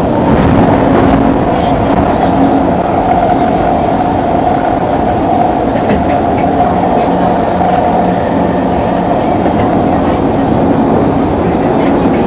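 Singapore MRT East-West Line train running at speed through a tunnel, heard inside the carriage: a loud, steady rumble of wheels on rail with a steady whine over it.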